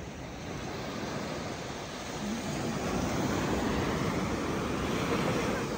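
Sea waves washing onto the beach, the rush of surf swelling about two seconds in and easing off near the end.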